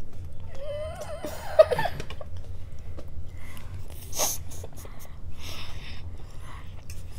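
Stifled laughter from a child: a wavering, muffled vocal sound with a sharp click about one and a half seconds in, then a short snort of laughter about four seconds in, followed by breathy giggling.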